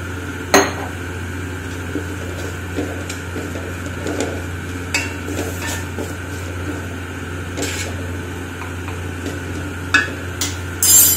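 Wooden spatula stirring and scraping chopped vegetables in an aluminium pan, with a steel spoon clinking against the pan as sauce is added. There is a sharp clink about half a second in and a louder clatter of knocks near the end, over a steady low hum.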